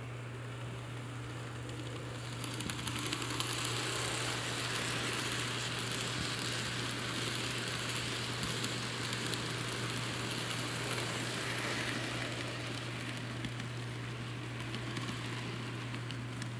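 N-scale model freight cars rolling past close by, their wheels clicking and rattling over the rail joints and crossover turnouts. The rolling is loudest from about two and a half seconds in until about twelve seconds, over a steady low hum.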